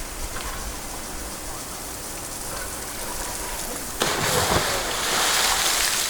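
Steady rush of water, with an abrupt, louder surge of splashing noise starting about four seconds in and lasting around two seconds.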